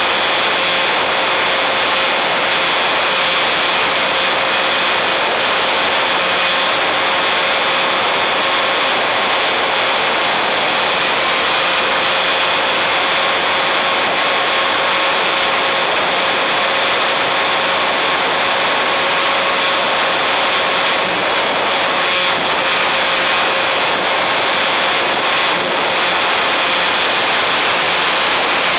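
RC model airplane in flight, heard from a camera mounted on it: a steady motor and propeller whine over constant rushing air.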